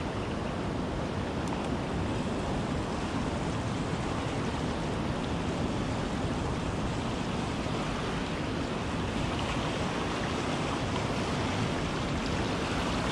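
Fast, turbulent river water rushing below a weir outflow: a steady, even noise.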